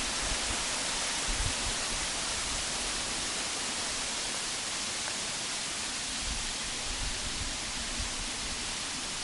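Waterfall: a steady rush of falling water, with an uneven low rumble underneath.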